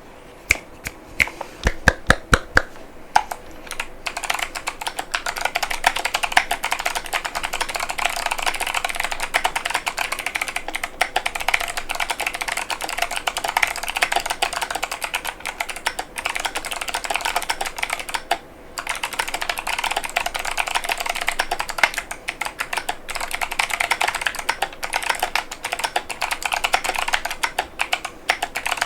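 Typing on an iROK FE104 mechanical keyboard with clicky Kailh Box Pink switches and PBT Cherry-profile keycaps. A handful of separate, loud key strikes to start, then fast continuous typing from about four seconds in, with a few brief pauses.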